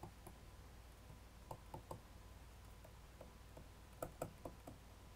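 Faint, sparse ticks and taps of a stylus writing on a pen tablet, in two small clusters, over a steady low hum.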